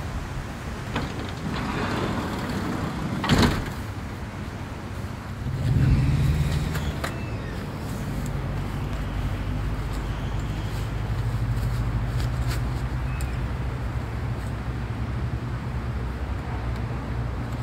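A motor vehicle's engine running with a steady low drone that swells about six seconds in, and a single sharp knock about three seconds in.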